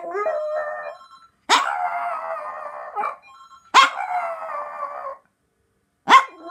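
A small Pomchi dog howling in a run of drawn-out howls, each about a second and a half long and opening with a sharp yip. The first slides upward in pitch, and a fourth begins near the end.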